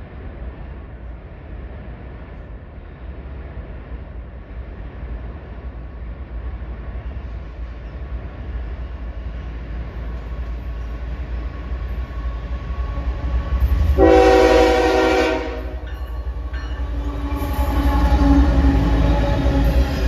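Canadian Pacific freight train's diesel locomotive approaching, its low rumble growing steadily louder. About two-thirds of the way through it sounds its horn in one blast of about a second and a half. The train then passes close, and its covered hopper grain cars roll by with a louder rumble of engine and wheels.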